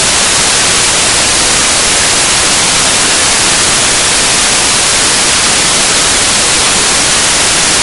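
Loud, steady static hiss like white noise, even throughout, with no other sound standing out.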